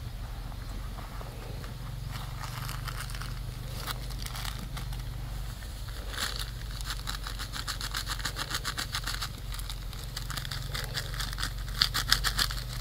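Small twig fire crackling under a steel pot, in dense runs of quick snaps and pops. The loudest snaps come just before the end. A steady low hum runs underneath.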